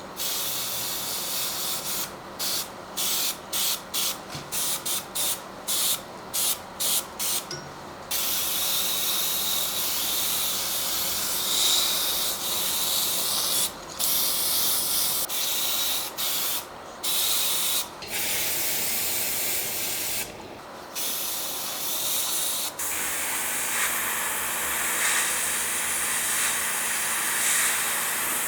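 Paint spraying: a hissing spray in about a dozen short bursts, then longer passes with a few brief breaks, turning fuller near the end.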